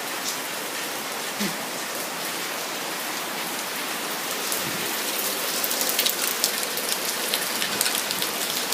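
Rain falling steadily, with a dense patter of drops hitting a surface, growing louder about halfway through.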